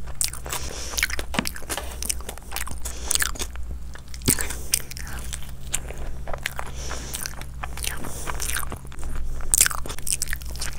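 A person chewing and biting food close to the microphone, with irregular crisp crunches, over a steady low hum.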